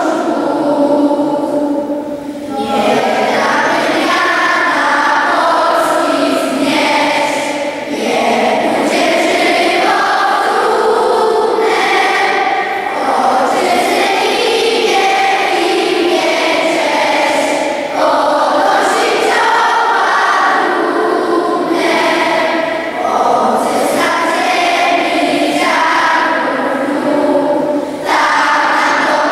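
Large children's school choir singing together, phrase after phrase, with short breaks for breath every few seconds.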